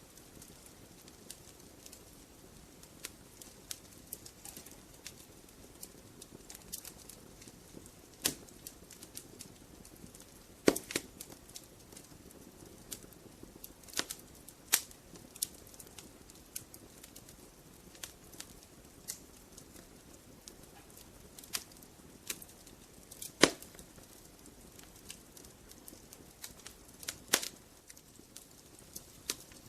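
Wood fire crackling in a fireplace: a faint steady hiss under irregular sharp pops and snaps from the burning logs, a few of them much louder than the rest.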